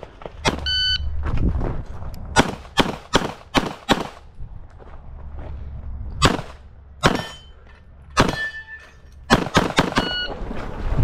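Handgun shots fired in quick strings, about a shot every 0.4 s in the fastest runs, with a pause in the middle. A few of the hits are followed by the brief ringing of struck steel targets.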